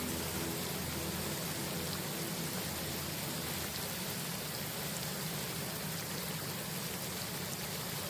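Steady rain falling: an even, unbroken hiss.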